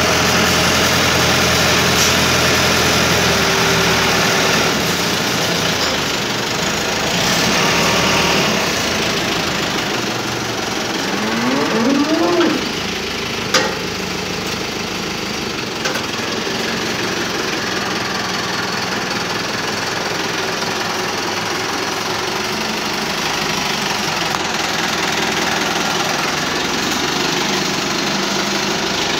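Farm tractor's diesel engine running steadily while it drags a rear scraper blade through manure. About halfway through there is a short rising tone, then a single sharp knock.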